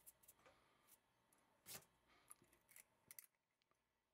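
Faint small metallic clicks and scrapes from a 1911 pistol's recoil spring and recoil spring plug being handled and twisted together. The loudest is a short scrape about a second and a half in, followed by a few sharp clicks.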